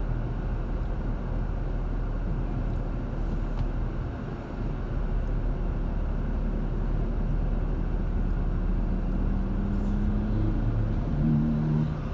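Steady road and engine noise of a car driving at highway speed, heard from inside the cabin as a low rumble of tyres on asphalt. A low hum shows up briefly near the end.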